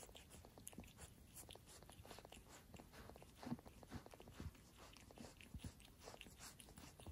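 Mother cat licking a wet newborn kitten clean: faint, irregular wet licking and mouth clicks, several a second.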